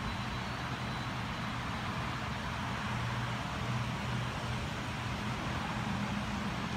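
Steady low hum of running machinery over an even background hiss.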